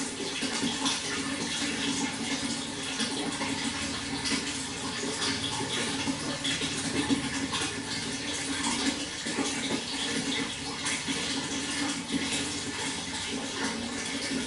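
Running water flowing in a steady, even rush, with many small splashing ticks throughout.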